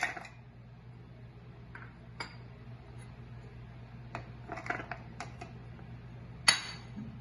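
Soaked almonds and cashews tipped from small ceramic bowls into a plastic blender jar: scattered taps and clatters of nuts dropping into the jar and bowls knocking and being set down on the marble counter. There is a sharp clack at the start and the loudest one about six and a half seconds in, over a faint steady hum.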